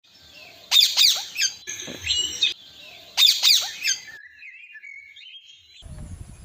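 Parrots calling: loud, harsh squawks in three bursts over the first four seconds, followed by softer wavering whistled notes.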